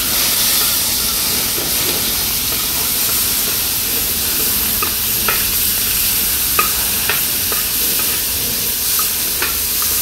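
Shrimp and octopus pieces sizzling steadily in hot oil in a frying pan as it flames up during a flambé, while a metal spoon stirs them, clinking against the pan several times.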